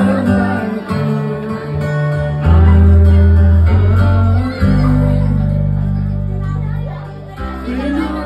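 Live band music: singing over guitar, with deep sustained bass notes that swell and slowly fade.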